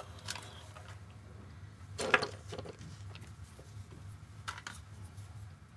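A few short handling rustles and scrapes as a small metal part is turned in the fingers, the loudest about two seconds in and another near the end, over a steady low hum.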